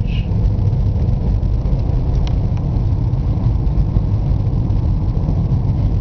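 Car driving on a wet road, heard from inside the cabin: a steady low rumble of engine and tyres.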